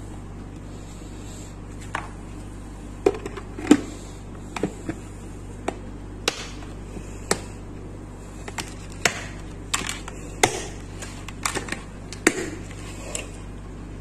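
Plastic lid of a Sistema microwave rice steamer being fitted and pressed into place: a series of irregular sharp plastic clicks and knocks over a steady low hum.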